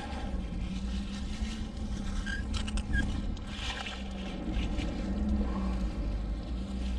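Steady low engine drone with a constant hum, and a few brief scrapes and clicks about halfway through.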